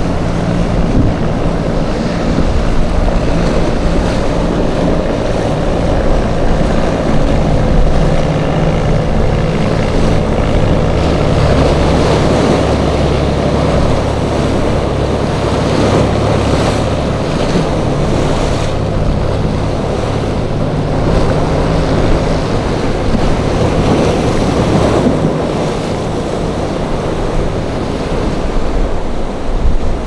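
Engines of a San Lorenzo motor yacht running with a low, steady hum as it crosses rough inlet waves, mixed with the wash of surf and wind buffeting the microphone.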